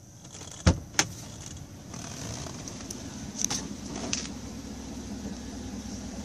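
Two sharp knocks about a third of a second apart, then the steady low hum of the GMC Yukon Denali idling. Near the end comes a loud clunk as the rear door latch releases and the door is pulled open.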